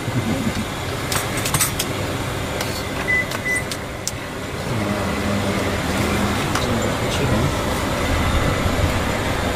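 Steady traffic and street noise, with a few sharp knocks of a knife on a wooden chopping board in the first four seconds.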